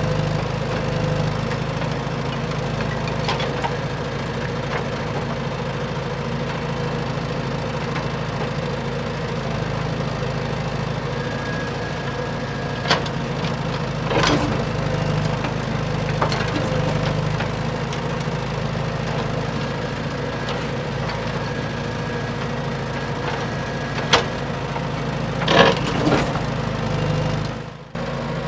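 Steady mechanical hum of RC construction models running, with a handful of sharp cracks and clatters in the second half. The sound drops out briefly near the end.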